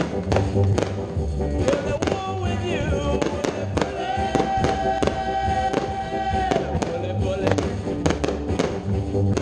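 Aerial firework shells bursting with sharp reports over a song with a steady beat; a long held note sounds about halfway through.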